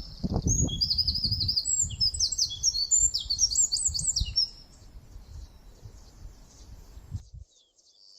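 Several birds chirping and singing in quick high trills, with a low rumbling noise underneath for the first four and a half seconds. Everything fades out near the end.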